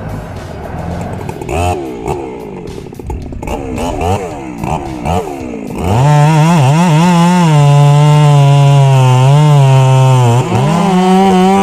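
Chainsaw engine revved up and down unevenly, then held at high revs from about halfway through, its pitch dipping briefly near the end before recovering.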